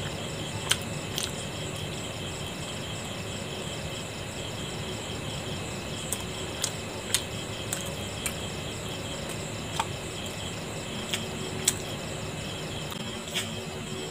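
Insects chirping steadily in a fast pulsing rhythm, with about ten sharp clicks scattered through.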